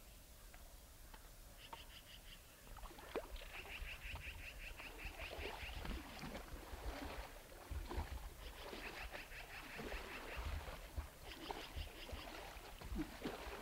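Bull moose wading through shallow river water: faint splashing and dripping around its legs and muzzle, with low thuds. Behind it, a thin rapid chirping trill repeats in short bursts.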